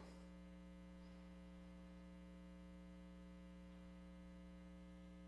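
Near silence: only a faint, steady electrical mains hum.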